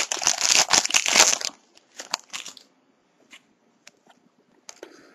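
Foil trading-card pack wrapper crinkling and crushing as it is torn open and crumpled, loud for about the first second and a half. After that come a few faint clicks and rustles.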